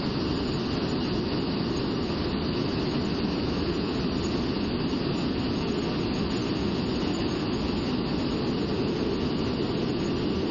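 Steady roar of jet engine and airstream heard inside the cockpit of a Blue Angels F/A-18 Hornet in flight, even and unchanging, deepest in the low range with a hiss above.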